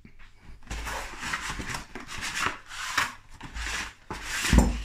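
Cardboard food box being handled and its end flap opened by hand to slide a pie out: irregular cardboard scraping and rubbing, with a heavier knock near the end.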